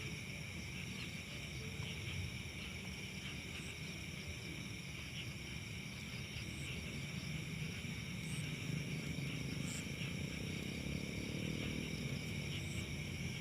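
Night insect chorus: crickets trilling steadily in several high, unbroken bands, over a low rumble that grows somewhat stronger in the second half.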